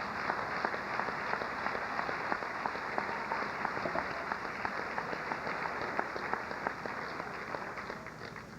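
Audience applauding: many hands clapping, fading near the end.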